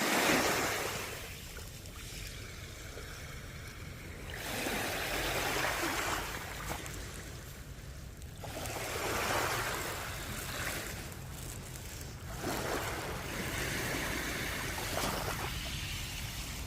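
Ocean waves breaking and washing up the shore, swelling and ebbing in slow surges every few seconds, with a low rumble of surf underneath.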